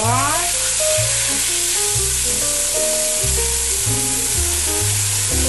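Broth poured from a ladle into a hot enameled cast-iron Dutch oven, sizzling the instant it hits the pan and then hissing steadily as it is stirred to deglaze the browned drippings. Background music with a bass line plays underneath.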